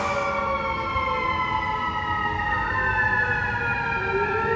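Fire truck siren wailing as the apparatus drives away, its pitch sliding slowly down and then rising again near the end.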